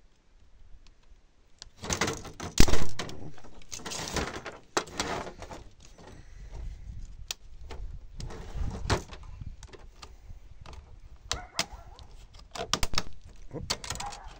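Plastic and metal parts of an LCD monitor's panel assembly being handled and pulled apart: irregular knocks, clicks and scraping, with one sharp knock about two and a half seconds in as the loudest.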